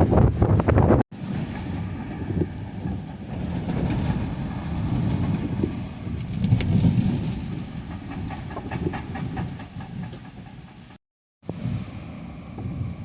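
Hurricane eyewall wind gusting and buffeting the microphone, surging and easing in strength. The sound drops out completely twice for a moment, about a second in and again near the end.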